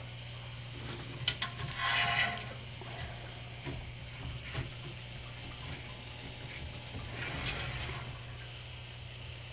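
Water trickling and splashing from a drip feature in a reptile enclosure over a steady low hum. There are scattered light clicks and two louder splashing or rustling bursts, one about two seconds in and a softer one later.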